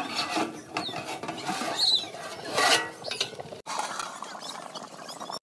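Metal cooking vessels and utensils clattering and clinking in quick irregular knocks and scrapes, with a few short high squeaks, broken off by an abrupt cut about three and a half seconds in.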